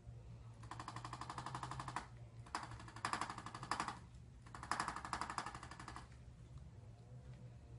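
Handheld percussive chiropractic adjusting instrument firing rapid machine-gun-like pulses in three bursts of just over a second each, with short pauses between them.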